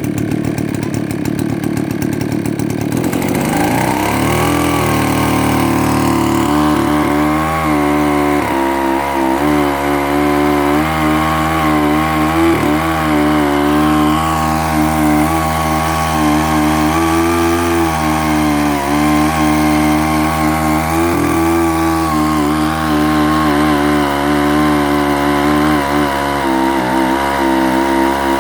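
Druzhba two-stroke chainsaw engine running, speeding up about three seconds in and then held at high revs with small wavers in pitch.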